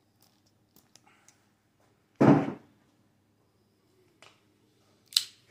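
Pliers clicking and snipping at a pit bike's handlebar kill-switch housing and wire, with a short dull knock about two seconds in and a sharp snap near the end.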